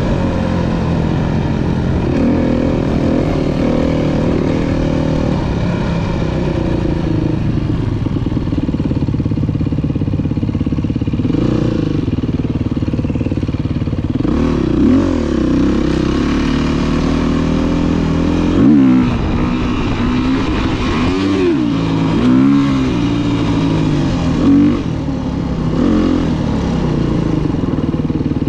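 Dirt bike engine heard on board while riding, running steadily. Several times in the second half the throttle is blipped, and the revs rise and fall in short sweeps.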